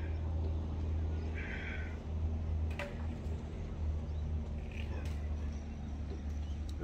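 Low, steady wind rumble on the microphone, with a few faint short squeaks and clicks.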